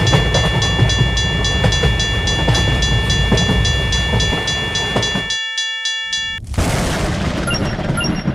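Railway level-crossing alarm ringing in a steady, regularly repeating tone while a train rumbles past. The train noise ends about five seconds in and the alarm stops a moment later; a loud burst of noise with a few short high pings follows near the end.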